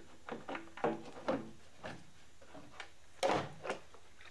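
Plastic windscreen washer bottle being worked free and lifted out of the engine bay: a series of light plastic knocks and scrapes, with a louder scraping clatter about three seconds in.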